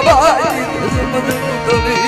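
Gujarati folk devotional music: a wavering melody line at the start over a drum beat of about two low strokes a second, each stroke dropping in pitch.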